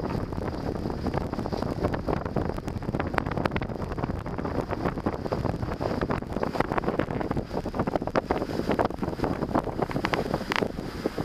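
Wind buffeting the microphone of a camera at a moving car's window, over steady road and engine noise. A thin, steady high tone runs beneath.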